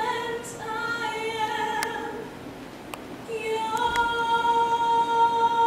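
Live singing from a stage musical number: voices holding long sustained notes, easing off about two seconds in, then rising into one long held note.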